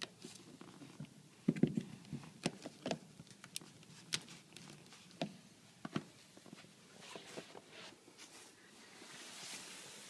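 Plastic clicks and knocks of a central-vacuum hose fitting being pushed into a wall inlet and handled, clustered in the first few seconds. A faint hiss builds near the end.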